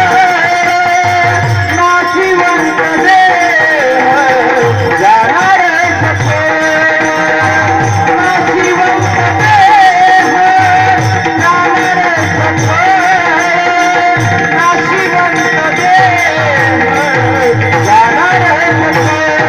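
Marathi devotional bhajan music: a wavering sung melody over a steady hand-drum beat.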